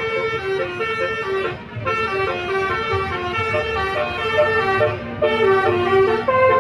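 A bus's basuri telolet horn playing a tune of quick, changing notes, breaking off briefly twice between phrases, over the low running of the bus engine.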